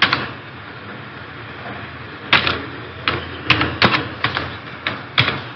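Computer keyboard keys clicking as a word is typed: about nine separate, irregularly spaced keystrokes, starting about two seconds in.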